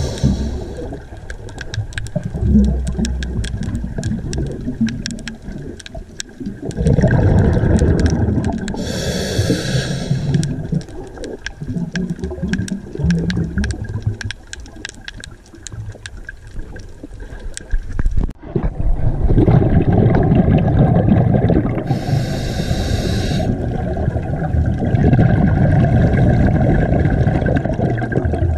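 Scuba diver breathing through a regulator underwater: two short hissing inhales and long, low bubbling exhales. Faint clicks run through the first half.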